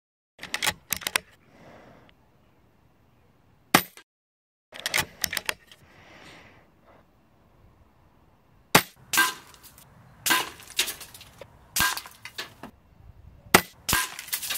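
FX Crown PCP air rifle firing several shots a few seconds apart, each a sharp crack, with lighter clicks between them from the action being cycled to load the next pellet.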